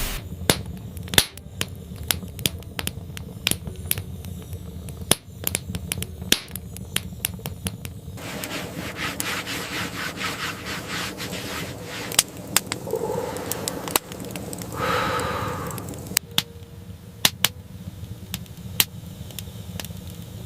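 Tent being pitched: sharp clicks and knocks of poles and stakes scattered throughout, with a stretch of rustling and scraping in the middle, over a steady low rumble.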